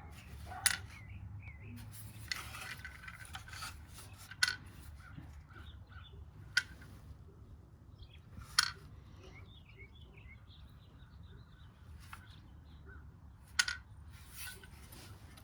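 Handling of an Arsenal SAM5 AK rifle: a few sharp clicks and knocks a couple of seconds apart, with light rubbing, over a low steady hum.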